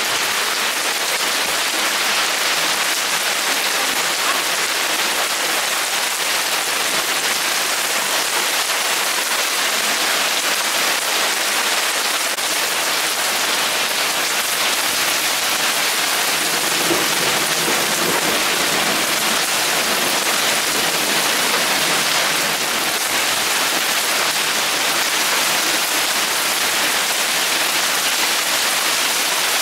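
Heavy thunderstorm downpour falling steadily: a dense, even hiss of rain without a break.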